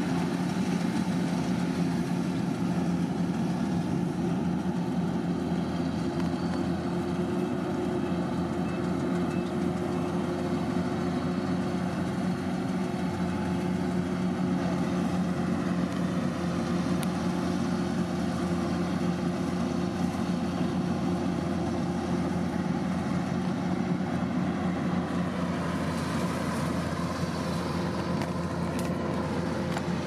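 Kubota DC-108X rice combine harvester running steadily while cutting: the constant drone of its diesel engine and working machinery, with no let-up.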